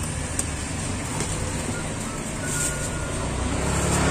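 A motor vehicle's engine running close by: a steady low hum that grows louder near the end. A faint click about half a second in.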